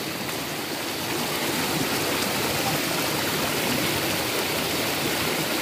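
Flood-swollen river rushing steadily over rocks and rapids.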